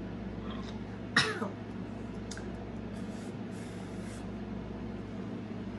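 A single short throat-clearing cough about a second in from a woman who has just chugged a beer, then quiet room tone.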